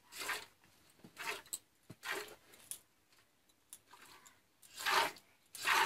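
Milk squirting from a cow's teats into a partly filled pail during hand milking: a short hissing swish with each squeeze, irregularly about a second apart, the loudest two near the end.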